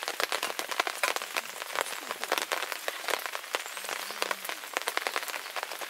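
Rain falling steadily, with many close, irregular drops tapping.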